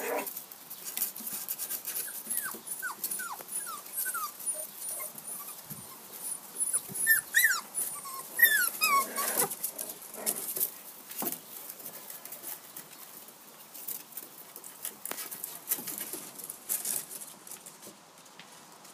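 Six-week-old Jack Russell terrier puppies whimpering in short, high squeaks. A few falling squeaks come a few seconds in, and louder rising-and-falling squeals come about seven to nine seconds in, over light tapping and scratching of small paws on wooden steps.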